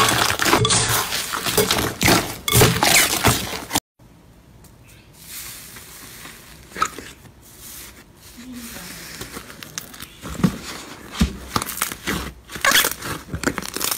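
Hands squeezing and kneading slime packed with foam beads, a loud, dense run of crackling and squishing. After a brief drop to silence about four seconds in, softer stretching and pressing of a fluffy slime follows, with scattered pops and crackles that grow louder near the end.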